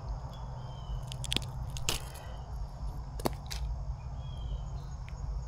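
Fishing handling noises: a few scattered sharp clicks and rustles as a small bass is landed, over a steady high insect drone.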